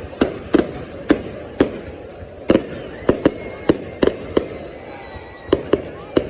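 Fireworks going off: about a dozen sharp bangs at irregular intervals over a continuous crackling background, with a faint high whistle in the middle.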